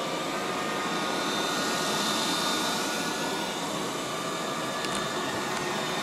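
Liectroux B6009 robot vacuum cleaner running on carpet: the steady whir of its suction motor, with faint steady high tones in it.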